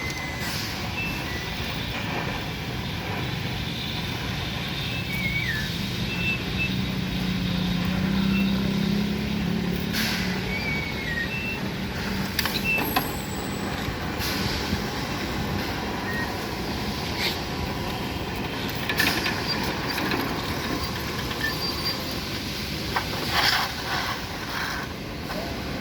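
Steady hiss and low engine hum of road-marking work, with the hum swelling for a few seconds near the middle and a handful of sharp knocks and clanks scattered through.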